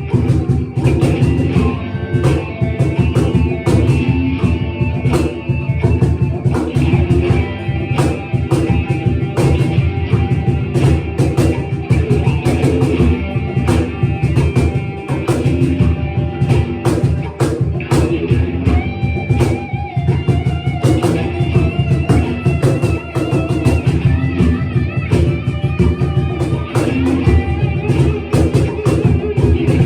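Music: guitar played over a steady, busy cajon beat, with long wavering high notes over the top.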